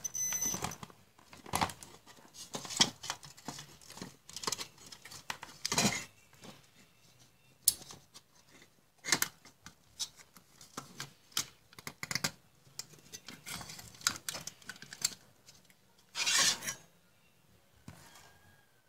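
Irregular clicks, taps and rustles of hands handling an opened computer power supply's wire bundle and circuit board, with one louder rustling scrape near the end.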